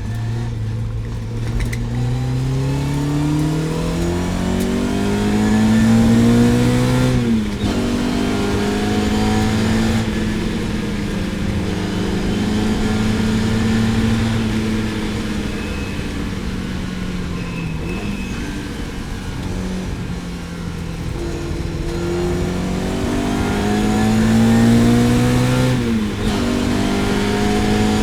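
Lotus Elan GTS race car engine under hard acceleration. The note rises through the revs and drops sharply at an upshift about seven seconds in. It then holds and sags while the car eases off, climbs again, drops at a second upshift near the end, and starts rising once more.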